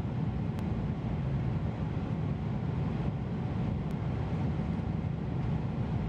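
Steady low rumble of an airliner cabin in cruise: engine and airflow noise, with two faint clicks.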